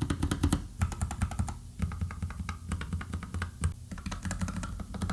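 Fast typing on a Nuphy Air 75 low-profile mechanical keyboard: rapid runs of key clicks with short pauses between bursts. The keys sound fairly quiet.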